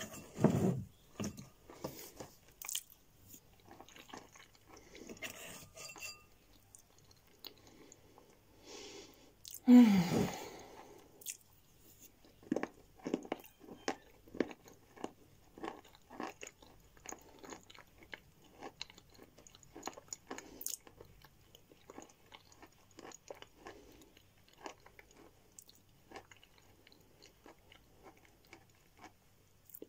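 Close-up crunching and chewing of pieces of edible chalk, a string of short crisp crunches at roughly one to two a second. There is a brief louder mouth or breath sound about ten seconds in.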